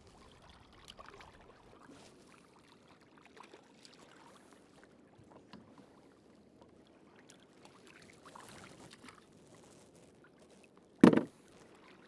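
Faint water trickling and small handling noises on a fishing kayak, with one short, sharp knock about eleven seconds in.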